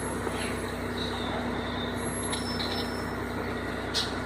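Steady low motor hum with a few faint, high chirps over it, about a second in and again near the end.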